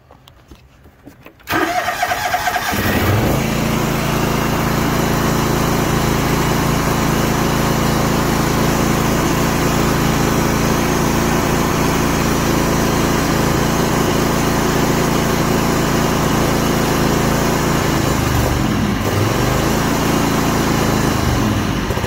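John Deere GX345 riding mower's Kawasaki V-twin engine cranked on the starter, catching about a second and a half in and then running steadily. Near the end its speed sags twice as it stumbles. This is typical of the mower's failing mechanical fuel pump, which lets it run only on choke and keeps fuel from reaching the carburetor.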